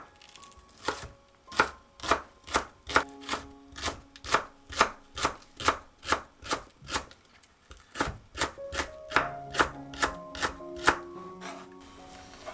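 Kitchen knife slicing a green onion on a wooden cutting board: crisp chops about two a second, with a brief pause near the middle.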